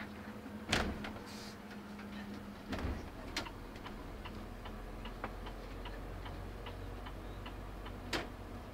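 A bus's turn-signal indicator ticking steadily, about three ticks a second, over the low hum of the engine heard from the driver's cab. A few sharper knocks cut in, the loudest about a second in and another near the end.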